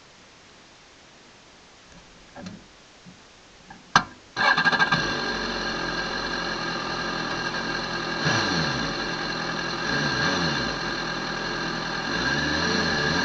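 A BMW sport bike's engine starting about four seconds in, just after a sharp click, then idling steadily with a few light blips of the throttle.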